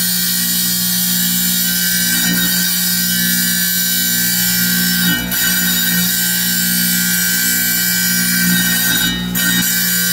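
Wet tile saw running with its blade cutting through a stone: a steady motor hum under a high grinding hiss, which drops off briefly twice.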